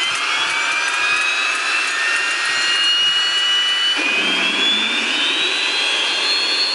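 Walter turboprop engine being started: the starter spins it up with a steadily rising whine. About four seconds in the sound changes suddenly and a lower rumble joins it as fuel is increased and the engine lights off.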